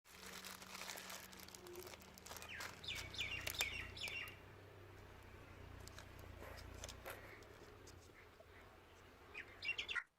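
Small birds chirping in quick runs of short falling chirps, a few seconds in and again near the end, over scattered light clicks and a low steady hum.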